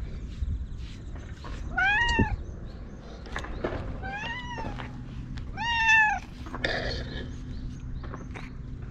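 Orange tabby cat meowing three times, each call rising and then falling in pitch: one about two seconds in, then two more around four and six seconds in, the last the loudest.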